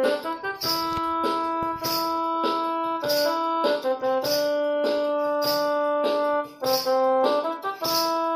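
Instrumental break in a song: a keyboard plays a melody of held notes over a steady percussion beat, with no singing.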